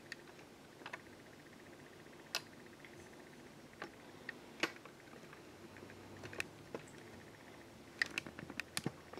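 Sparse, sharp little clicks and ticks, a handful spread out and then a quick cluster of them near the end, over a faint steady hum.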